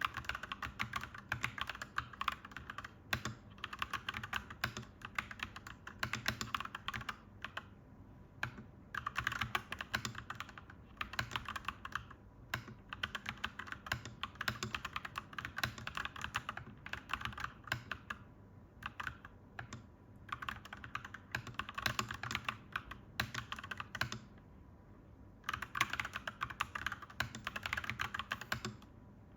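Clacky mechanical keyboard being typed on in bursts of rapid keystrokes, with short pauses between runs and a longer pause about three-quarters of the way through.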